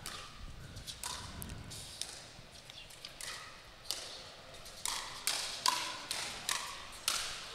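Pickleball paddles striking a plastic ball in a rally: a series of sharp pops, spaced out at first, then coming faster, about two a second, in the second half as the players trade quick volleys.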